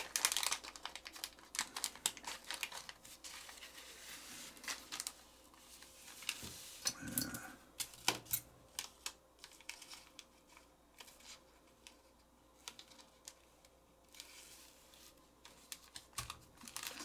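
Scattered, irregular light clicks and taps of small lighter parts and hand tools being handled on a work surface, with a brief rustle a few seconds in.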